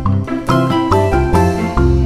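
Background music: a light melody of short notes, a new note about every half second, over a bass line.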